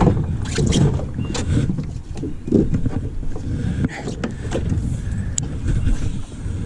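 Irregular knocks, clicks and thumps from gear being handled in a fishing kayak, over a steady low rumble.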